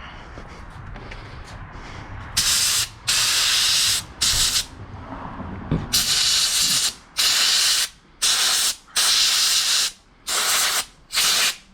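Sandblaster gun blasting an aluminium battery box clean for welding: short bursts of loud, even air hiss, about nine of them, each about half a second to a second long, starting a couple of seconds in.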